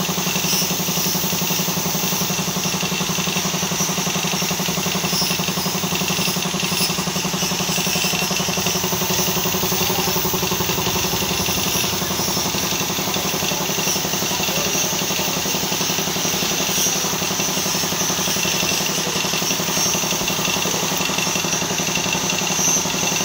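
Air compressor running steadily with a fast, even pulse, under a constant high hiss of air from a paint spray gun.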